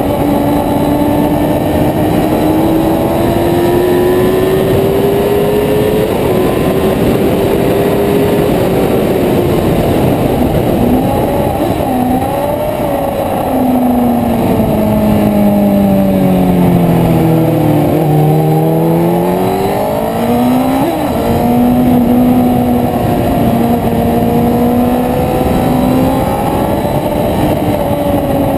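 Sports motorcycle engine heard onboard at track speed under heavy wind rush, running at high revs. About halfway through, the revs drop in a series of steps, as on downshifts into a corner, then climb again and settle.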